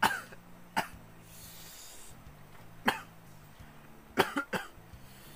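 A person coughing: single coughs about a second in and near the middle, then a quick run of three coughs near the end, over a faint low hum.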